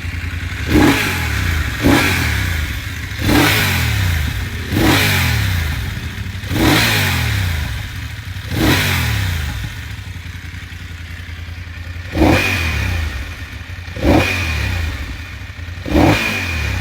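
BMW F900GS Adventure's parallel-twin engine, through its stock exhaust, revved on a stationary bike: nine quick throttle blips, each rising sharply and dropping back to idle, with a short spell of plain idling about two-thirds of the way through.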